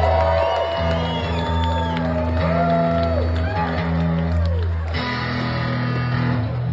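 Live electric band playing blues-rock: a bending lead line over steady bass notes. The bending lead stops about five seconds in, leaving held chords and bass.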